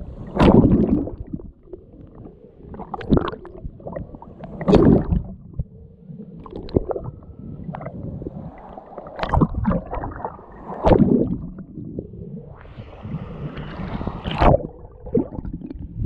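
Sea water sloshing and splashing over a camera held at the surface as small waves break against it, with gurgling as it dips under. The surges come irregularly, every second or two, with sharp splashes among them.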